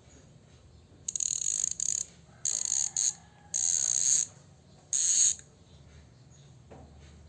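Ragusa XM700 mountain-bike freehub ratcheting as the hub is spun: four bursts of fast buzzing pawl clicks, each about half a second to a second long.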